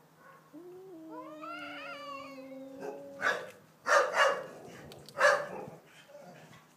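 Domestic cats caterwauling in a territorial standoff: a long drawn-out yowl begins about half a second in and lasts nearly three seconds, then come four short, harsh, louder outbursts.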